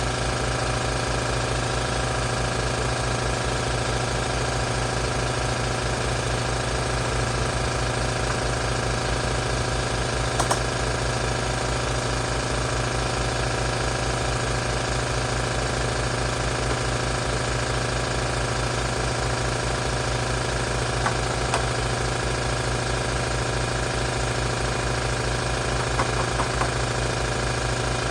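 Electric piston air compressor running steadily, its pump making a fast, even pulsing, with a few light clicks over it.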